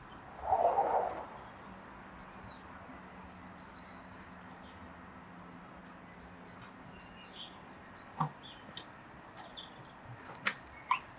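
Small birds chirping on and off, with a short dull knock about a second in and a few sharp clicks near the end.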